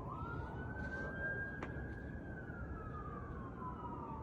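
Emergency vehicle siren in a slow wail: the pitch rises near the start, holds, then falls away over a couple of seconds before starting to climb again at the end, over a steady low rumble.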